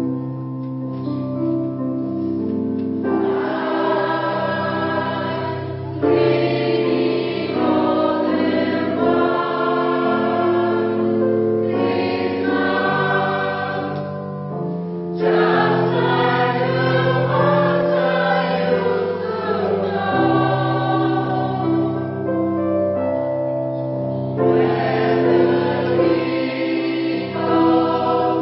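Polyphonic choir singing a Christmas piece in sustained chords, with the voices swelling louder about six seconds in and again around the middle.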